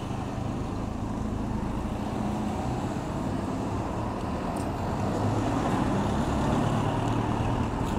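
Road traffic passing: the engines of cars and motor scooters making a steady rumble that grows a little louder about five seconds in.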